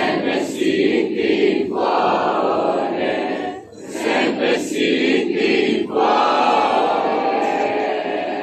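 A large crowd singing together in unison, in loud phrases with a brief break about halfway, ending on a longer held note.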